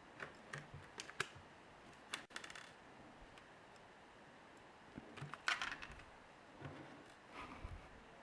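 Faint, scattered small clicks and taps of the iPhone 3G's internal parts and small tools being handled during disassembly, with a short cluster about two seconds in and another about five and a half seconds in.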